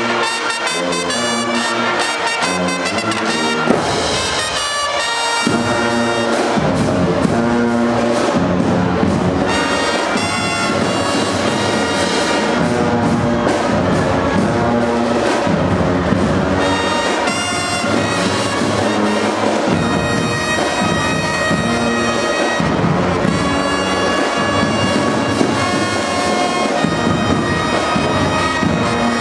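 Marching band playing a loud, continuous tune, led by trumpets and sousaphones.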